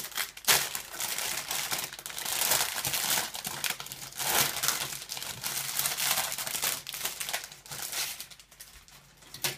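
Thin plastic bag crinkling as a model-kit runner is handled and taken out of its bag, with a sharp snap about half a second in; the crinkling dies down near the end.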